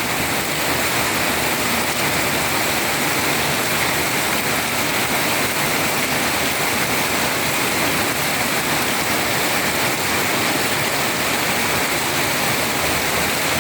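Heavy rain falling steadily, a dense even hiss of water with no break.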